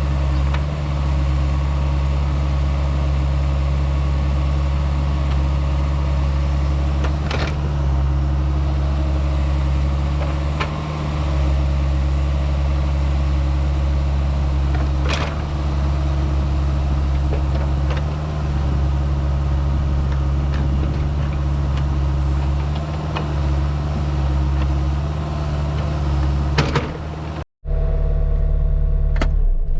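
Diesel engine of a Caterpillar compact track loader running steadily under load while pushing dirt, with a few sharp knocks. The sound breaks off briefly near the end.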